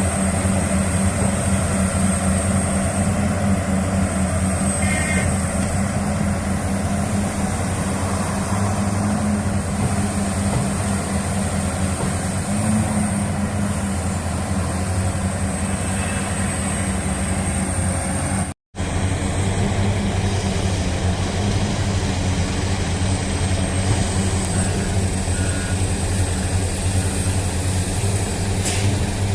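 Heavy diesel engines of a large hydraulic excavator and an articulated dump truck running steadily during loading: a deep, even engine hum with a thin high whine above it. The sound cuts out for an instant about two-thirds of the way through.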